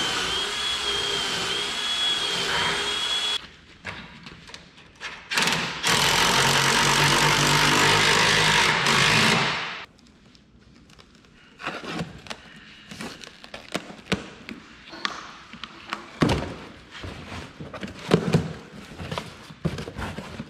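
A handheld power drill runs for about three and a half seconds with a wavering whine, then again for about four seconds after a short pause. After that a cardboard box and the parts in it are handled on a table, with scattered taps and knocks.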